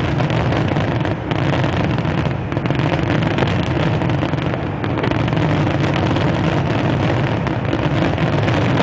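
Fireworks finale barrage: many shells bursting in rapid succession, blending into one continuous rumble and crackle.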